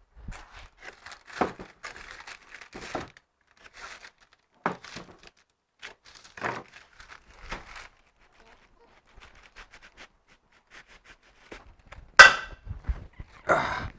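Packaging being handled and pulled open around the kit's metal parts: scattered crinkling, rustling and light knocks, with one loud knock about twelve seconds in.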